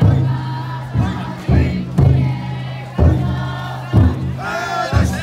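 Big taiko drum inside a futon daiko festival float beaten with a heavy boom about once a second, while the bearers chant together in unison.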